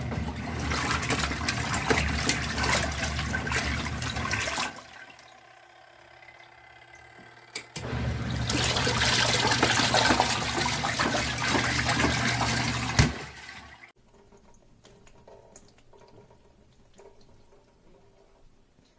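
Small twin-tub washing machine's wash motor churning water, running in two stretches of about five seconds with a pause between, as the wash cycle alternates; it stops about fourteen seconds in.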